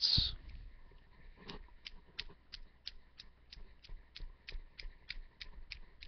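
A steady series of short, high clicks, about three a second, starting about a second and a half in.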